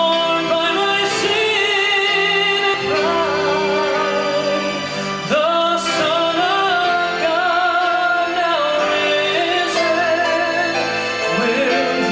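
A sung Christian song: a voice holds long notes with vibrato over instrumental accompaniment.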